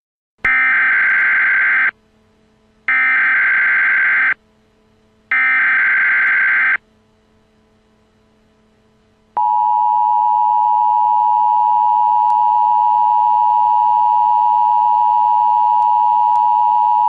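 Emergency Alert System broadcast signal: three short bursts of warbling SAME data tones, about a second and a half each, then about nine seconds in the steady two-tone attention signal (853 and 960 Hz sounded together) that heralds a civil emergency message.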